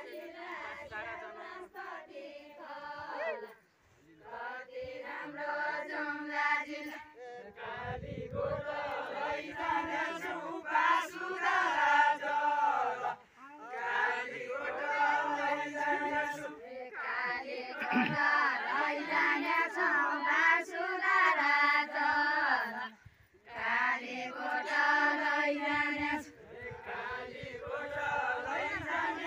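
A group of men singing a Nepali Deuda folk song together, unaccompanied, in long chanted phrases. Three short breaks fall between the lines, about 4, 13 and 23 seconds in.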